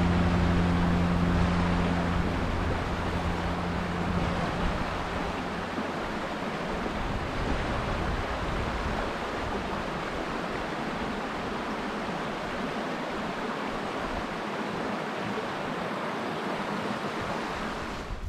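Shallow rocky moorland burn running over stones: a steady rush of water. A held low musical chord fades out over the first few seconds.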